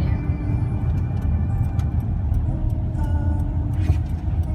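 Road noise inside a moving car: a steady low rumble of engine and tyres on wet pavement, with a few faint ticks.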